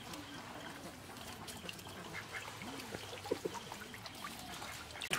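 Faint water trickling and scattered light clicks from a bamboo-slat fish trap being handled at the water's edge, with a few short, low calls in the background.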